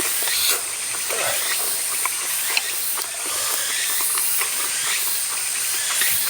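Steady hissing outdoor ambience with a constant high whine and scattered small clicks.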